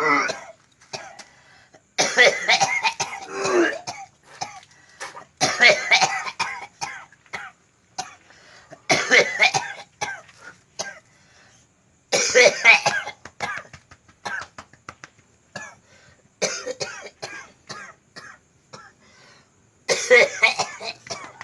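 A man coughing in repeated harsh fits, about six bouts every three to four seconds, each a rapid run of coughs. It is his chronic cough of over two years, for which no medical cause was found.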